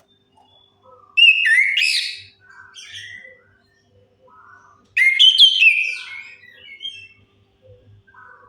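Chestnut-capped thrush singing: two loud phrases of quick, sweeping whistled notes, one about a second in and one about five seconds in, with softer scattered notes between them.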